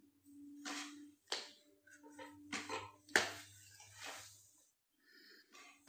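Hair and a flat iron being handled: soft rustling of hair with a few faint sharp clicks, the clearest about a second and a half and three seconds in, over a faint steady hum.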